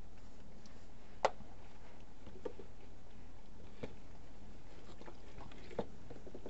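A few sharp clicks and light taps from hand work on the rear differential cover, one louder click about a second in, over a steady low background hiss.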